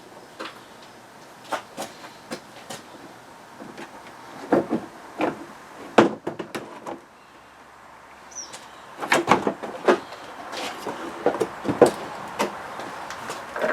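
Irregular clicks, knocks and rattles of the front end of a 2009 Smart ForTwo being worked apart by hand, parts and trim being pried and handled, growing busier in the second half with a louder clatter near the end.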